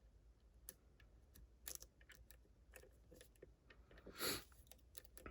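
Faint, scattered clicks of a lock pick and tension wrench working the pins inside a Ruko 600 lock, probing for the binding pin, with one short louder rush of noise about four seconds in.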